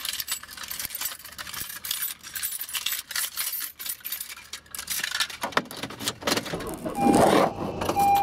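Keys jangling and clicking in the car, then about seven seconds in a louder rumble as the car engine starts, with a steady electronic dashboard warning chime.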